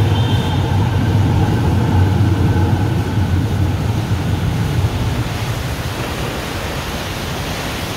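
Fountain jets splashing into a stone basin, a steady rush of falling water, over a low rumble of traffic on the elevated expressway overhead that eases off about five seconds in.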